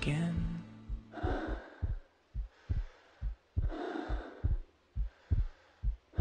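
A heartbeat and breathing sound effect in a performance's music track: a steady run of low heartbeat thumps, with three slow breaths swelling over them.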